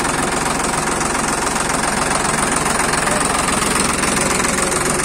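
Eicher 650 tractor's diesel engine running steadily, heard up close.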